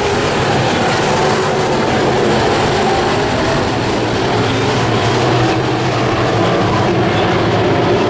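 Several Sport Modified dirt-track race cars running at racing speed, their engines a loud, steady drone with no breaks.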